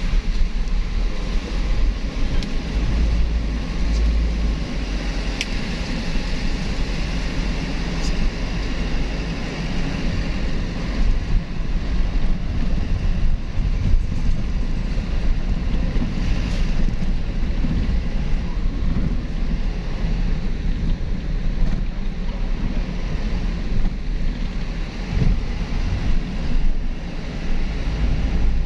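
A vehicle driving on a rough, unpaved gravel road: a steady low rumble of engine and tyres, with wind buffeting the microphone.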